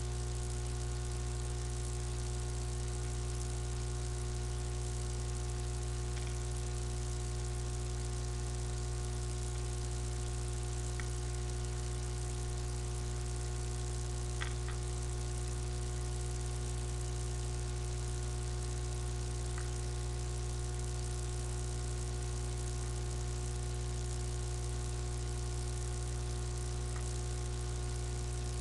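Steady low electrical hum with hiss, as picked up by a webcam microphone, with a few faint clicks, the clearest about halfway through.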